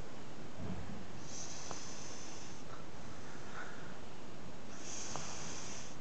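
A sleeping child breathing slowly and audibly, two long hissing breaths about three and a half seconds apart, with a soft low bump a little under a second in.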